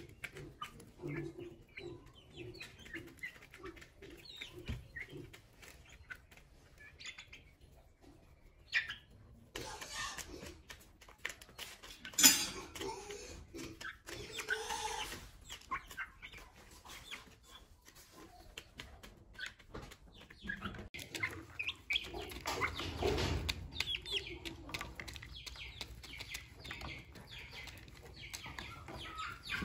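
Young chickens chirping and clucking while they feed, with many short taps of beaks pecking at a plastic feed dish and one sharp loud click about twelve seconds in.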